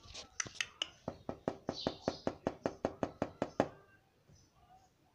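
Indian ringneck parakeet at a mirror making a fast, even run of sharp clicks, about five or six a second. The clicks stop about three and a half seconds in.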